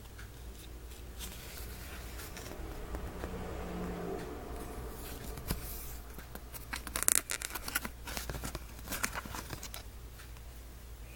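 Cardboard perfume sample card being handled and opened by hand: soft rubbing and scraping, then a cluster of sharp clicks and scrapes, loudest about seven seconds in, as the small glass sample vial is worked out of its card holder. A steady low electrical hum runs underneath.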